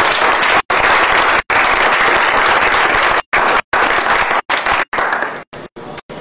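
Audience applauding, dying down about five seconds in, with the sound cutting out briefly several times.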